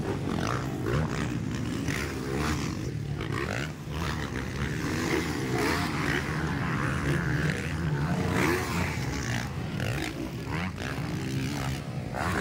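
Several motocross dirt bikes racing, their engines revving up and down in overlapping rising and falling pitches as they take the jumps.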